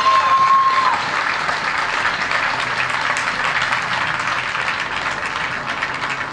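Spectators clapping for a clear show-jumping round, with a long whistle over the start of the applause that stops about a second in; the clapping slowly fades.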